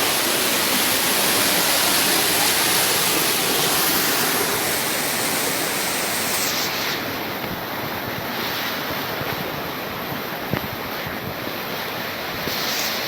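Steady rushing water, a continuous hiss that turns duller about halfway through.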